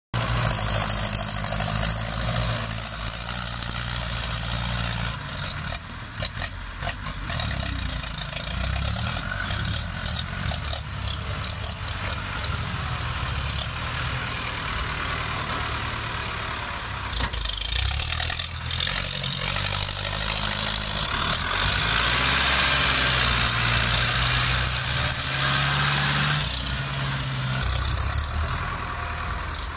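Ford tractors' diesel engines running hard through loud exhaust pipes, the note rising and falling with load as they pull a disc harrow and push soil. There is some irregular clatter for several seconds about a third of the way in.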